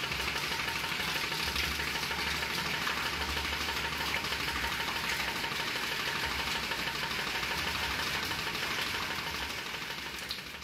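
A half-inch bearing-type pump driven by a 12-volt DC motor, running steadily off a battery, with water pouring from its hose into a tank. The sound is an even hum with a steady water hiss, fading away near the end.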